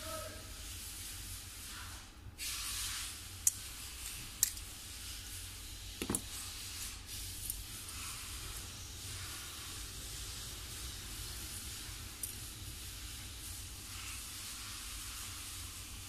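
A few sharp plastic clicks and taps, the loudest about three and a half and four and a half seconds in, from prying open a hair trimmer's plastic switch cover. They sit over a steady hiss with a low hum.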